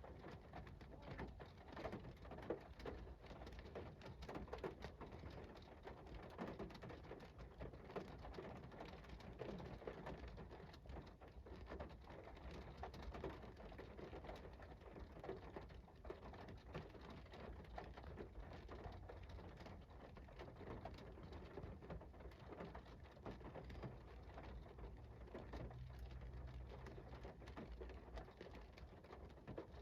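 Faint, steady rain falling, with scattered raindrops ticking.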